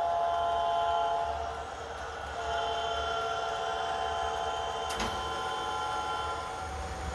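A model diesel locomotive's onboard sound system sounding a multi-chime air horn: one blast ending about a second and a half in, then a longer second blast, over the low rumble of the model train rolling along the track. A sharp click about five seconds in.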